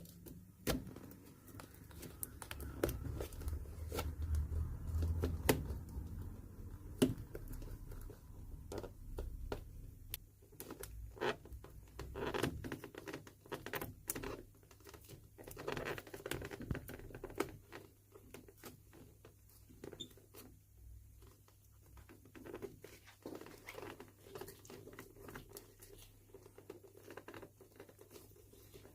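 Hand tools working on the leather sole of a golf shoe: irregular scraping, clicks and tearing as the sole's stitches are cut and it is prised away from the welt.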